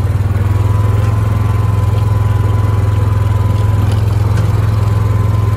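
Small farm vehicle's engine running steadily while driving across grass: a loud, even low drone with a faint steady whine above it.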